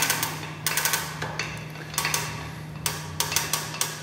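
Chain hoist's steel hand chain pulled hand over hand, the links clinking and clattering in repeated short bursts as load is taken up on the hook under test, over a steady low hum.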